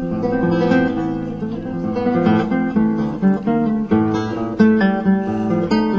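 Background music: acoustic guitar playing plucked notes and strums.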